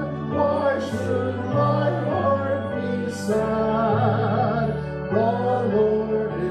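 A slow song: singing with instrumental accompaniment, the voice holding long wavering notes over sustained low bass notes that change about once a second.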